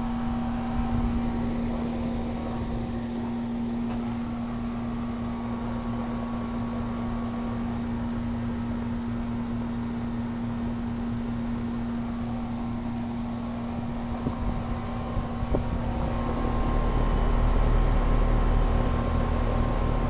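1988 Heil 2-ton heat pump running in cooling mode, its compressor and condenser fan giving a steady hum over a constant whoosh of air. A low rumble grows for a few seconds near the end.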